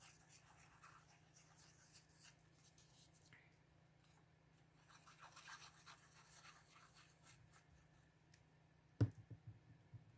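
Faint rustling and rubbing of paper as a paper label is handled and pressed onto a paper envelope. About nine seconds in there is one sharp tap, followed by a few small clicks.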